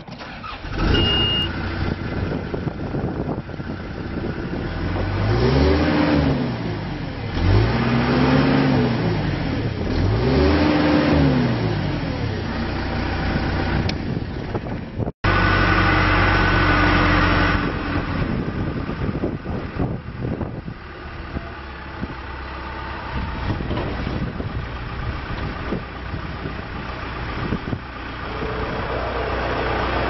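John Deere 310J backhoe's 4045DT four-cylinder turbo diesel starting up in the cab, with a short beep from the dash, then revved up and back down three times. After a cut it runs steadily while the front loader bucket is raised and tilted.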